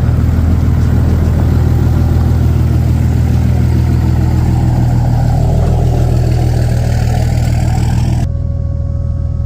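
A vehicle engine running steadily with a deep, even drone. It cuts off abruptly about eight seconds in, and a quieter steady hum with a couple of held tones takes over.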